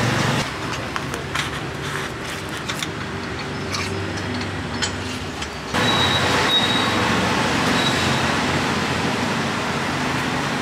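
Street traffic noise, stepping up suddenly to a louder, steady wash about six seconds in, with a few light clicks during the quieter first half.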